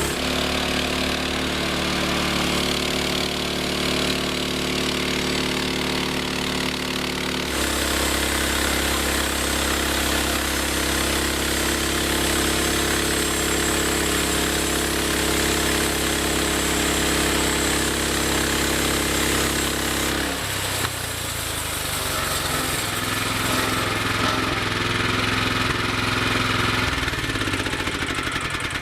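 Engine of a homemade band sawmill running steadily. Its pitch and tone shift abruptly twice, about a third of the way in and again about two-thirds of the way in.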